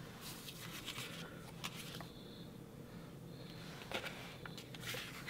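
Faint rustling and rubbing of paper sticker sheets being handled and slid over a paper layout, with a few light ticks.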